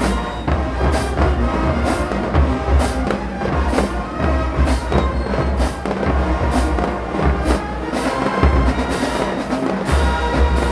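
Marching band playing: a brass section over a drumline, with heavy bass and sharp percussion accents about once a second.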